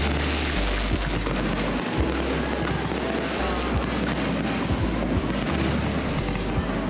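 Background music with a steady bass line playing over a fireworks display: dense crackling from the bursts, with many sharp bangs scattered through it.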